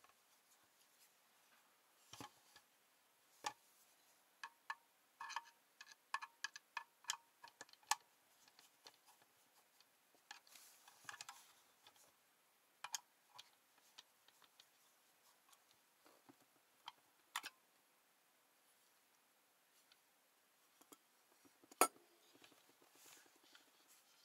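Small clicks and knocks of an AMT D2 guitar pedal's metal case being handled and opened: a quick run of light clicks in the first third, scattered taps after, and one sharper knock near the end.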